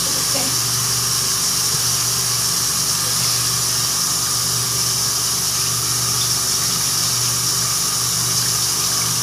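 Water running steadily from a bathroom tap into the sink, an even rush with no breaks, over a low steady hum.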